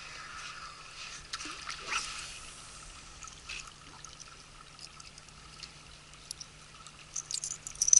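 Spinning tackle handled by hand: small scattered clicks and ticks of a metal spoon lure and its treble hook, with a quick cluster of sharper clicks near the end, over a faint wash of water.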